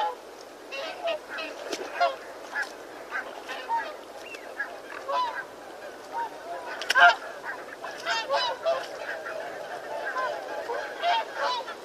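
A flock of birds calling: many short, pitched calls overlapping at irregular intervals, with the loudest call about seven seconds in.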